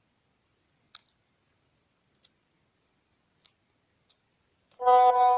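Four faint, sharp clicks a second or so apart, then near the end a loud, steady tone with several overtones starts suddenly.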